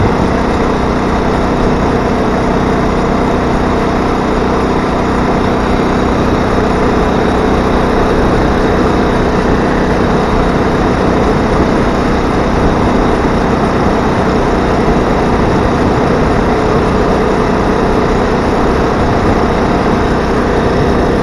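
Small 80cc engine on a motorized bicycle running steadily at an even speed while the bike cruises on the road.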